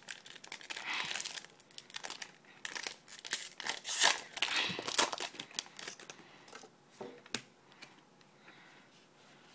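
Foil Yu-Gi-Oh booster pack wrappers crinkling and being torn open by hand, busiest through the first five seconds or so. After that it thins to a few clicks and faint rustles.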